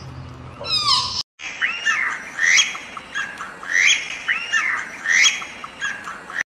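A deer's high call, falling steeply in pitch, then after a short break a bird calling over and over, a bit more than once a second.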